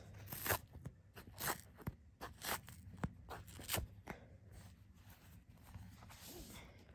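Cardboard box and paper wrapping being handled as a tablet is lifted out: a run of crinkles, rustles and light knocks, busiest in the first four seconds and sparser after.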